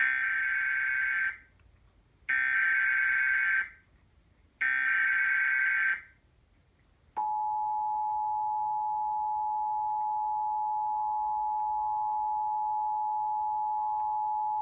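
Emergency Alert System tones: three harsh, buzzy bursts of SAME digital data, each about a second and a half long with about a second between them. About seven seconds in, the steady two-tone attention signal (853 and 960 Hz) starts and holds.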